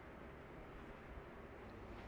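Near silence: faint steady room tone with no distinct sounds.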